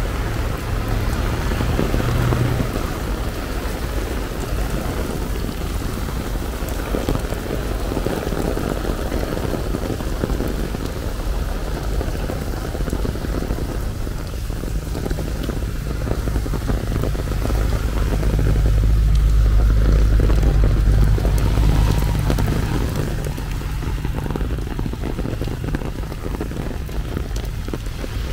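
Rain falling steadily, with a low rumble that swells for a few seconds about two-thirds of the way through.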